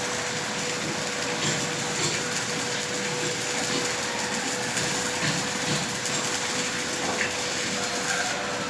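Arc welding: a steady crackling, frying hiss from the welding arc, with a steady hum underneath.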